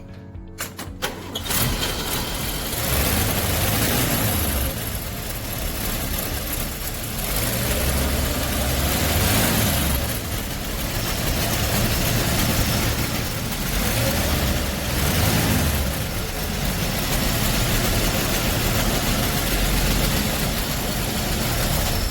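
1955 panel truck's six-cylinder engine starts about a second and a half in, then runs, its level swelling and easing every few seconds.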